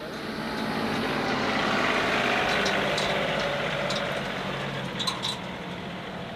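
John Deere 2038R compact tractor's three-cylinder diesel engine running as the tractor drives past towing a bush hog. It grows louder to about two seconds in, then slowly fades, with a few light metallic clicks near the end.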